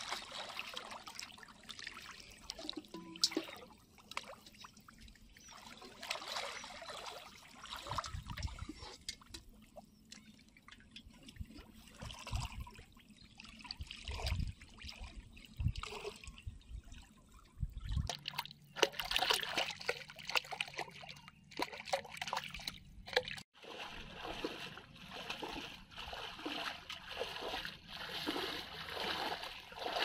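Shallow water splashing and trickling in irregular bursts as a person wades through it and pushes a metal pot along the surface. It breaks off for an instant about two-thirds of the way through, and the water noise is denser after that.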